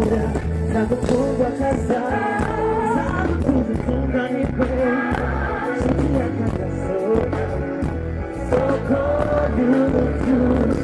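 Live band music with a singer: a sung melody over a steady bass line and drum beat, amplified through a PA.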